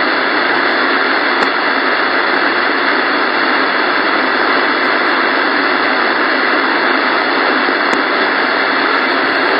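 CB radio receiver putting out steady, loud static hiss on an open channel, with no station transmitting.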